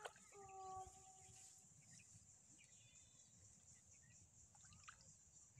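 Near silence with faint sloshing of shallow muddy water as feet and hands move through a flooded rice-field channel, and a brief pitched sound near the start.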